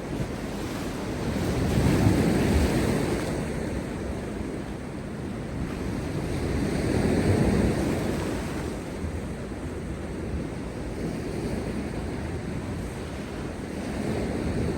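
Heavy post-storm sea waves crashing on rocks. The surf swells to two loud peaks, about two and seven seconds in, with a smaller surge near the end.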